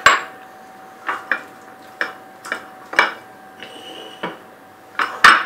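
Glass bowls and a metal spoon clinking and knocking against each other and on a stone countertop: about a dozen sharp, ringing clinks at irregular intervals, the loudest near the start and near the end, over a faint steady hum.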